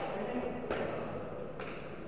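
Two sharp cracks of a hard pelota ball in a bare-hand trinquet rally, struck by hand and rebounding off the walls, about a second apart. Each crack has a short echo in the enclosed court.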